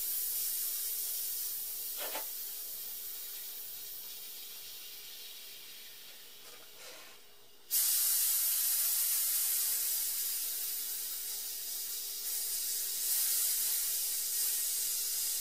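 Compressed air hissing out of the fill line's bleed valve as it is slowly bled down from about 4500 PSI after a tank fill. The hiss fades over about seven seconds, then suddenly jumps back louder and carries on.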